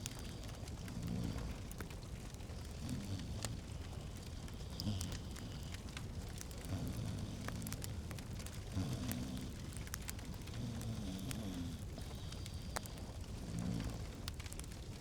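Wood fire crackling in a fireplace, with many scattered sharp pops over a low, steady rumble.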